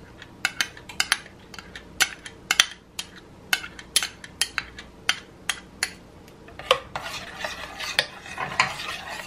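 Light clicks and clinks of kitchenware, a few a second, while molasses is poured into a stainless steel saucepan. About seven seconds in, a spoon starts stirring the sauce in the pan, rubbing and clinking against the metal.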